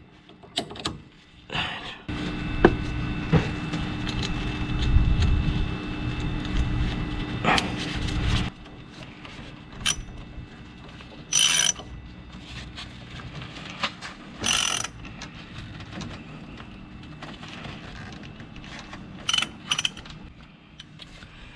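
Ratchet wrench tightening bolts on a car engine: a long stretch of steady ratcheting and metal-on-metal working in the first half, then scattered clicks and short bursts of ratchet strokes.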